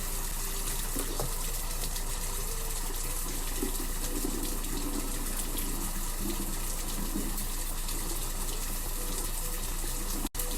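Water running steadily from a bathroom sink tap during face washing.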